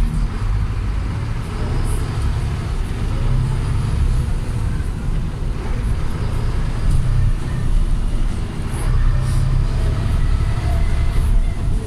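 Volvo B7TL double-decker bus with its 7.3-litre engine running on the move, heard from inside the passenger cabin: a steady low engine drone mixed with road rumble.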